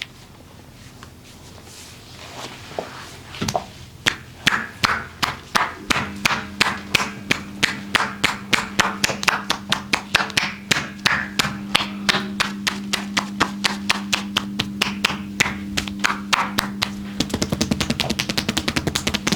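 Hands slapping a body in rhythmic percussive massage, about three strokes a second, breaking into a rapid fast patter near the end.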